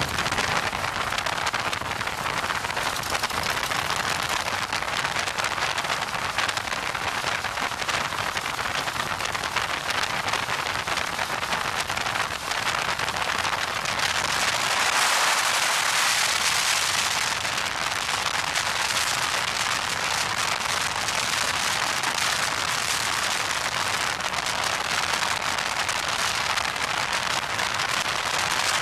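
Wind and road noise from riding a motorcycle at highway speed: a steady crackling hiss of wind buffeting the microphone, swelling for a few seconds about halfway through.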